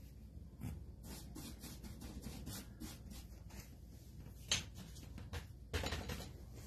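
Faint rubbing and scraping handling noises from painting work: soft strokes, a sharp click about four and a half seconds in, and a louder scrape near six seconds.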